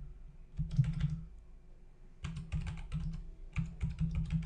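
Typing on a computer keyboard: a short run of keystrokes about half a second in, then a longer, quicker run of keystrokes from about two seconds in.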